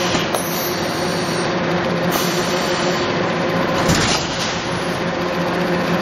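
Production-line sheet-cutting machine and conveyor running with a steady motor hum, with a brief louder rush about four seconds in.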